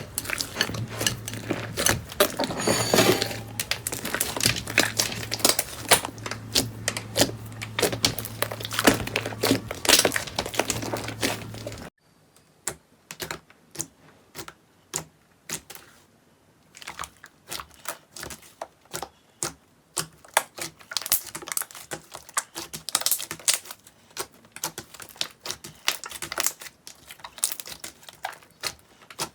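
Slime being squeezed and pressed by hand, giving rapid crackling and popping clicks. About twelve seconds in, the clip changes: a low hum drops away and the clicks come in sparser bursts.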